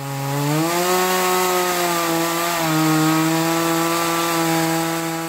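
Chainsaw running at high speed as it cuts through firewood, a steady motor tone over the hiss of the chain; its pitch rises a little about a second in.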